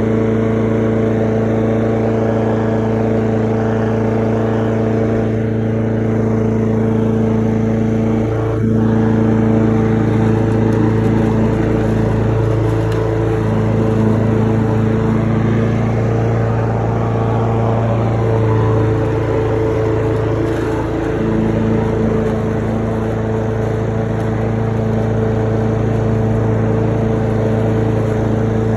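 Lawn mower engine running steadily at a constant speed while mowing, its note dipping briefly now and then.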